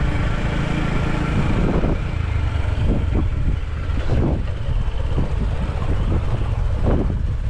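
Bajaj Boxer motorcycle's small single-cylinder engine running at a steady cruising speed, loaded with three riders on a dirt road.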